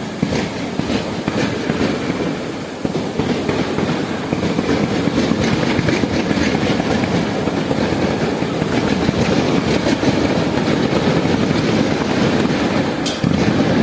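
Fireworks going off in a dense, rapid barrage, the bangs and crackles running together into one continuous loud rumble.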